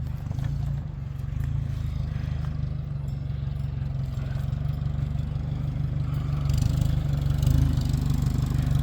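Vehicle engine running steadily at low speed, a low hum that gets slightly louder about two-thirds of the way in.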